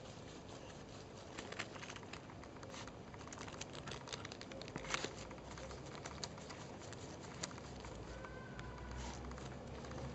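Chorkie puppy digging in loose soil, its paws scratching and scraping in irregular clusters of small scratchy clicks, the loudest about five seconds in.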